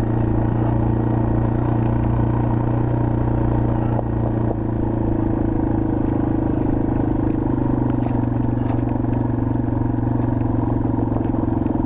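2021 Yamaha TW200's single-cylinder four-stroke engine running steadily as the trail bike is ridden at an even pace.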